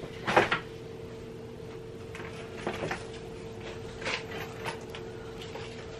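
An office chair being adjusted lower: a short noise about half a second in, then a few faint clicks and scuffs, over a steady hum.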